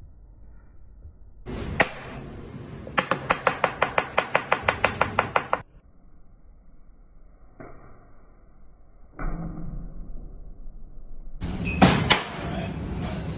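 Kitchen knife chopping fast on a plastic cutting board, about eight quick strikes a second for a couple of seconds. A few separate knocks follow, then a loud sharp thwack of the blade near the end.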